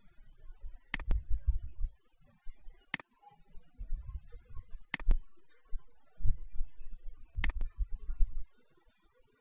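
Four sharp computer mouse clicks, about two seconds apart, several heard as a quick double click of press and release. Low muffled noise between the clicks.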